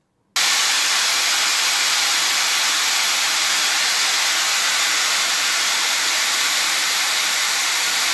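Pressure cooker's weight valve venting steam in a steady, loud hiss that starts suddenly about half a second in. This is the cooker's second 'whistle', the count that marks the toor dal as cooked.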